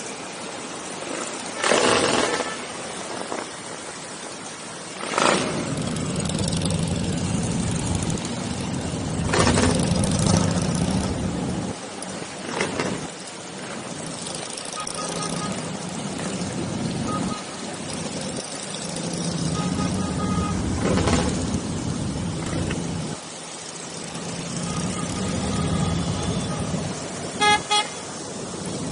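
Motorcycle engines running together in a group ride, with horns tooting now and then and a pair of short horn blasts near the end.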